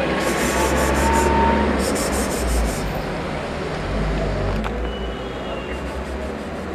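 Steady low background rumble, with scratchy rubbing or rustling in two short stretches during the first three seconds.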